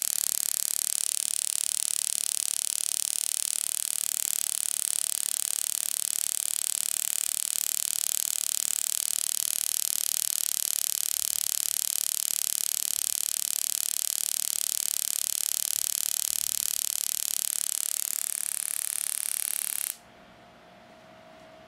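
Homemade mini spark-gap Tesla coil, powered by a mosquito-swatter's 3 V to 6000 V module, running with a steady high-pitched buzzing hiss from its spark gap and arcs. It stops abruptly about 20 seconds in, leaving a faint steady tone and a couple of clicks.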